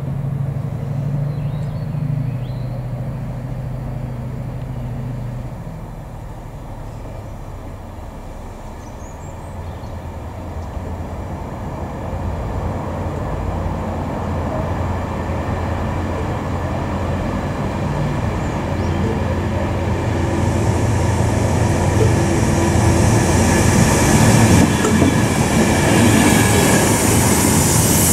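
Diesel locomotive-hauled train approaching and running past, growing steadily louder, with a low engine drone underneath. Wheel and rail noise rises to a loud hiss over the last several seconds as the Chiltern coaches pass close by.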